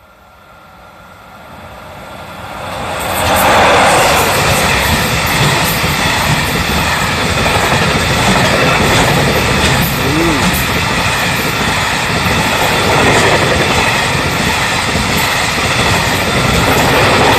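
An EF66 electric locomotive and its train of container wagons pass over a level crossing. The sound swells as the locomotive approaches and becomes loud about three seconds in, then holds as a steady rumble with continuous clattering of wheels over the rail joints as the wagons go by.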